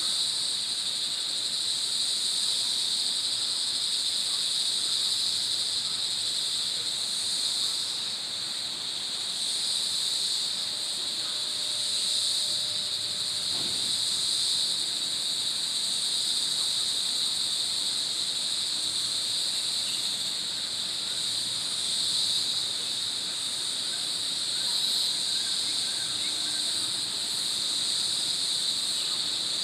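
Forest insect chorus: a steady, shrill high-pitched buzzing at two pitches, swelling and easing slightly without a break.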